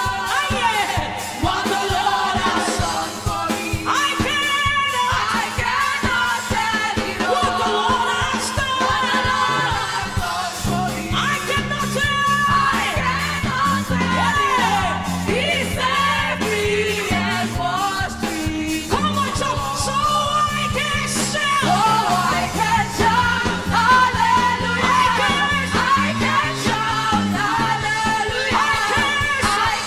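Live gospel worship song: a woman singing lead over a band with drums. A bass line comes in about ten seconds in.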